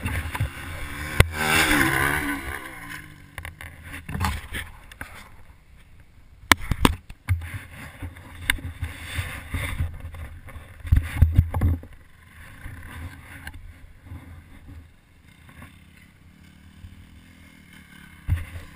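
Motocross bike engine revving, its pitch sweeping up and down about a second or two in. It is followed by a quieter stretch broken by several sharp knocks and low rumbling bumps near the camera.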